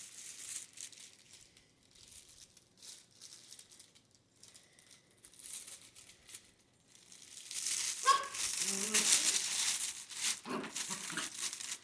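Puppies playing with their toys: a crinkling, rattling rustle that is light at first and grows loud about seven or eight seconds in, with a few brief squeaks near the start of the loud part.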